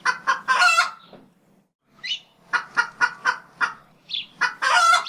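Chicken cackling: a run of short clucks about four a second, with longer drawn-out calls near the start and at the end.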